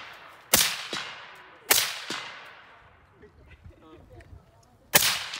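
Three rifle shots from an AR-style rifle, the first two about a second apart and the third a few seconds later near the end, each ringing out with a long fading echo.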